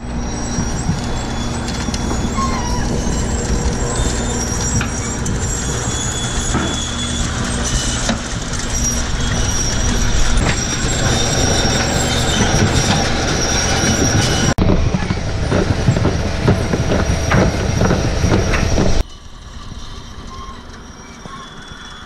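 Potato unloading and grading conveyors running with potatoes on them: a steady mechanical rattle over a low motor drone, with thin high-pitched tones above it. About 19 seconds in it drops suddenly to a much quieter running sound.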